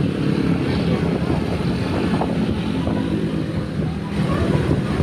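Large bus's diesel engine running with a low, steady drone, strongest about midway through.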